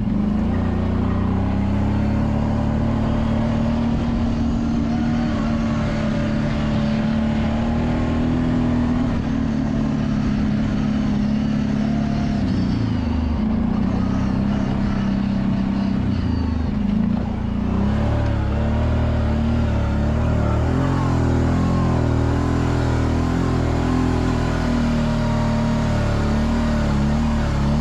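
Four-wheel-drive off-road vehicle's engine running steadily while driving, its pitch easing off and picking back up a couple of times near the middle.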